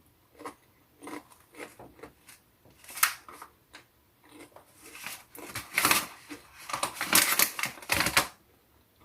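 Crunching on a crisp popped-corn chip (Popcorners), in irregular bites with louder crunches about three, six and seven to eight seconds in.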